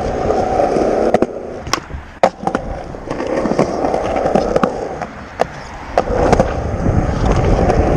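Skateboard wheels rolling, with several sharp clacks of the board popping and landing during basic warm-up tricks.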